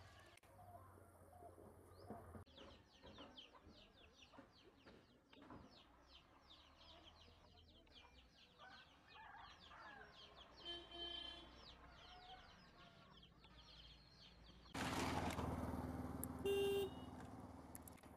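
Outdoor ambience of many small birds chirping, with a chicken calling briefly around the middle. About fifteen seconds in, a motor vehicle passes close by, starting suddenly and fading, and sounds a short horn toot.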